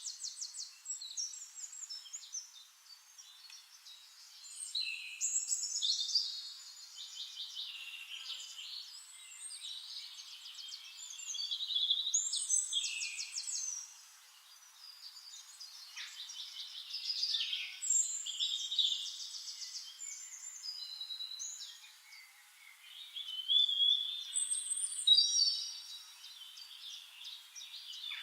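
Songbirds singing: varied phrases of trills and fast repeated notes, overlapping, with louder phrases coming every few seconds.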